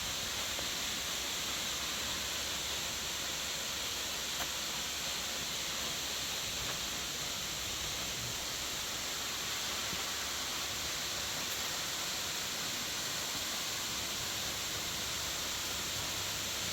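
Steady hiss of rushing water, unbroken throughout.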